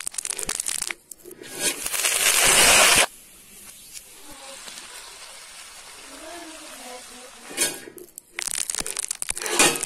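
Dried red chillies crackling and crunching as they are torn open and deseeded by hand, in a spell at the start and again near the end. Between them comes a loud rising hiss that cuts off suddenly, then a quieter steady hiss from oil bubbling in an iron kadai.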